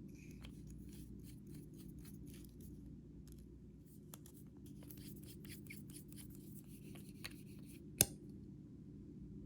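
Slime being handled and worked by hand, with many faint, irregular sticky clicks and crackles and one sharp click near the end, over a low steady hum.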